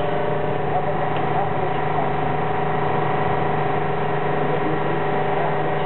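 Seybold Saber IV 58-inch paper cutter's motor running with a steady hum.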